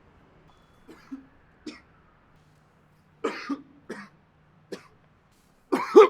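A person coughing: a run of short separate coughs, small at first and growing stronger, with the loudest, longest fit near the end.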